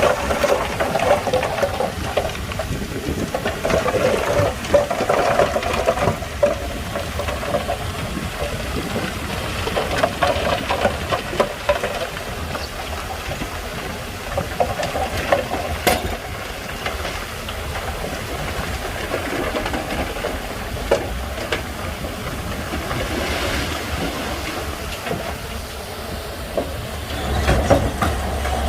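Shantui crawler bulldozer at work: diesel engine running steadily under the clanking and rattling of its steel tracks.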